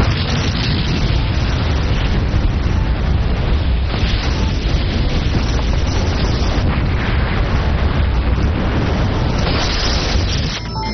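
Film sound effect of a volcanic eruption: a sudden blast, then a continuous heavy rumble with a strong deep low end that eases shortly before the end.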